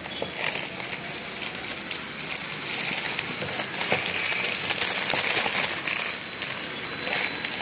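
Clear plastic wrapping crinkling and rustling with many small crackles as it is handled and pulled off a subwoofer driver.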